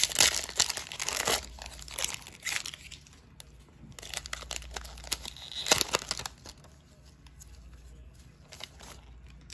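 Cellophane wrapper of a Panini Prizm basketball cello pack crinkling and tearing open, with dense crackling for the first two and a half seconds and another short burst about six seconds in. After that, quieter occasional rustling as the stack of cards is handled.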